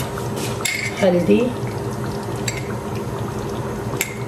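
A metal spoon clinks sharply against a turmeric jar and the steel cooking pot a few times as turmeric is spooned into the chicken masala, over a steady low background of the pot cooking on the gas hob.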